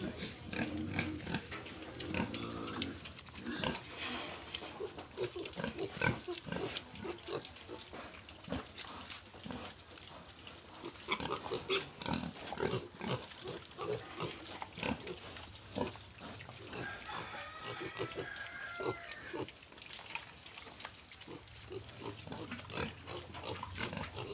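A pen of young Large White × Landrace crossbred piglets grunting, with low grunts near the start and a higher squeal about two-thirds of the way through, among many short clicks and knocks of the pigs moving about.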